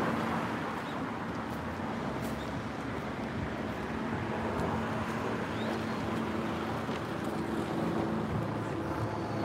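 Steady road traffic noise: cars running on a street close by.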